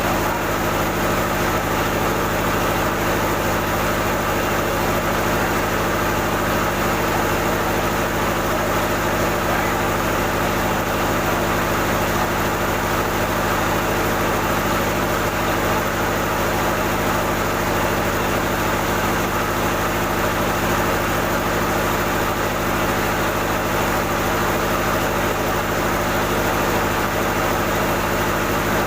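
Rice-milling machinery, an old N50 huller with a rice polisher, running steadily under power: a loud, even mechanical drone with a constant hum and no change in speed.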